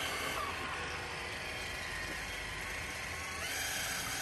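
Traxxas TRX-4 Sport RC crawler on tracks, its electric motor and geartrain whining steadily as it churns through shallow muddy water. The whine climbs in pitch about three and a half seconds in as the throttle opens.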